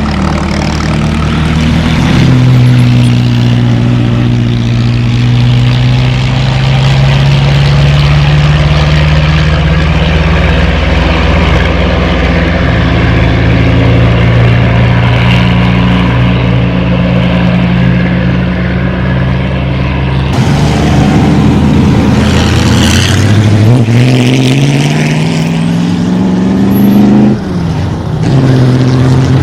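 Vintage racing car engine running loud and close, its pitch holding fairly steady for a long stretch. Near the end the revs climb in pitch twice, then drop sharply.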